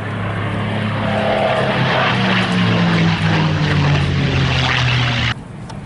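CA-18 Mustang's Merlin V-12 engine flying past, getting louder as its pitch falls slightly, then cutting off suddenly near the end.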